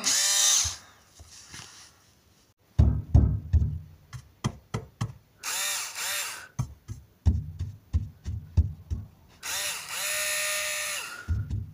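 A drill whirring in three short runs, each rising in pitch as it spins up, the last held steady for over a second. Between the runs comes a string of knocks and thumps.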